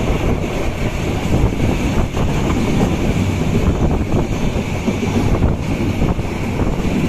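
Wind buffeting the microphone at the open window of a moving passenger train, over the train's steady running noise on the track.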